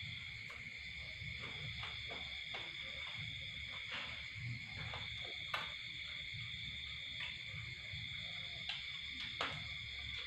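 A steady chorus of night insects, a continuous high trill that does not let up, with a few sharp clicks scattered through it.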